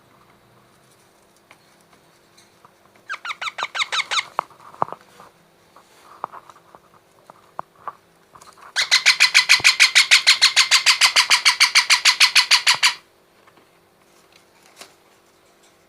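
Baby parrot calling in rapid, evenly pulsed bursts of about seven pulses a second: a short burst about three seconds in, then a longer, louder run lasting about four seconds past the middle.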